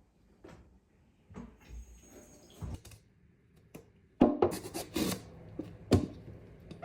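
Kitchen prep sounds: dishes and utensils clinking and knocking on a counter, sparse at first, then busier and louder from about four seconds in, with several sharp knocks.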